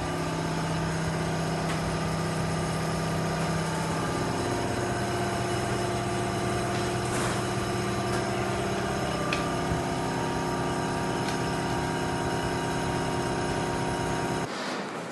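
Industrial machinery running steadily, a continuous hum made of several steady tones whose pitch shifts about four seconds in and again near ten seconds; the sound changes abruptly shortly before the end.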